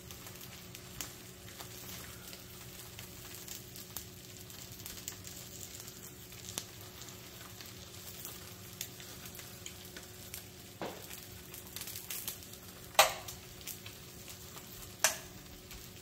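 Duck eggs frying in bacon fat: a steady sizzle with fine crackling. Two sharp knocks near the end stand out above the sizzle.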